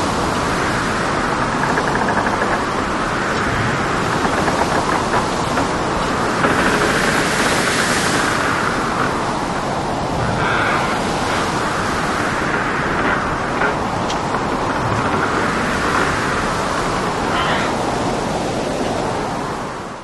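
Storm at sea heard from aboard a boat: a dense, steady rush of waves and rain, swelling briefly about a third of the way in and fading out at the end.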